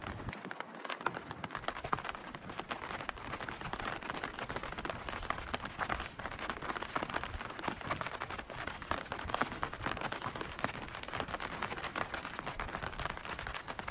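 Rain pattering steadily, a dense irregular spatter of small drip ticks.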